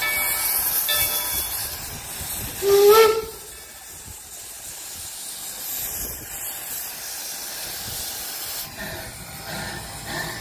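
Steam hissing hard from the open cylinder cocks of narrow-gauge steam locomotive D&RG No. 168, a 4-6-0, as it starts its train. About three seconds in comes a short whistle toot, the loudest sound, and after it the hiss drops to a quieter, steady blow.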